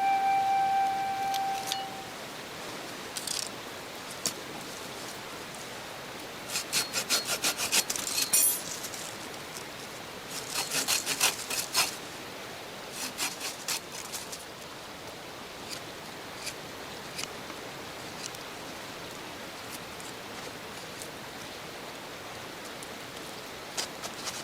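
Quick, evenly spaced rasping strokes on wood in three short bursts, over a steady faint hiss, with a few single clicks between.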